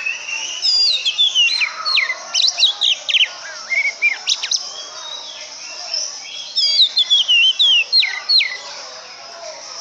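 Oriental magpie-robin (kacer) singing: quick, varied whistled notes sliding up and down, in two bursts of song, the second starting about six and a half seconds in.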